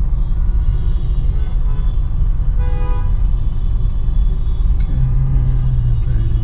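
Steady low rumble of engine and traffic heard from inside a car's cabin in slow, stop-and-go traffic, with vehicle horns tooting briefly a couple of times a few seconds in.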